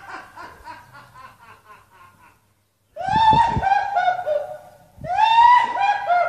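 Quick, stifled snickering, then after a short pause two loud bouts of shrill, laugh-like yelling from a man, each a run of falling whoops about a second long.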